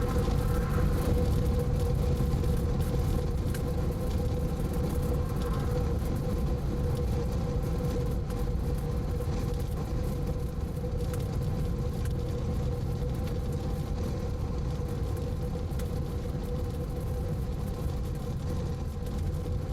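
Moving vehicle heard from inside: a steady low rumble of road and wind noise, with a steady mid-pitched hum.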